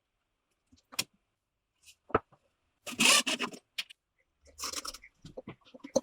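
Handling noises with no machine running: a click, a knock, then two short scraping or sliding noises and a patter of small clicks, like wooden parts being moved and set on a table.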